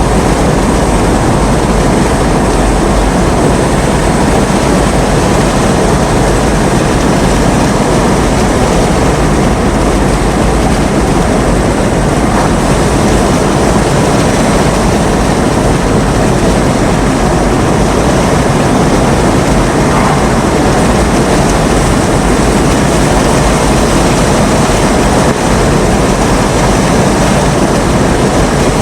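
Loud, steady rushing noise of strong storm wind and heavy rain, with a low rumble underneath.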